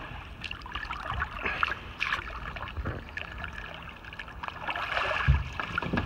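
Water splashing and sloshing around people wading chest-deep, with a brief low thump about five seconds in.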